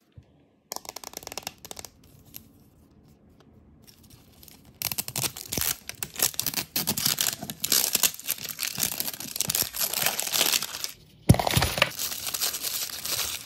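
Wrapping being torn off an L.O.L. Surprise! capsule ball and its printed wrapper crinkled by hand. A few short crackles come about a second in. From about five seconds there is a dense run of tearing and crinkling, broken by a brief pause and a sudden thump near the end.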